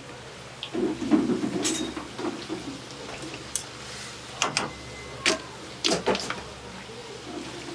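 Kitchen clatter: a handful of sharp clicks and knocks, scattered a second or so apart, over a low steady hum.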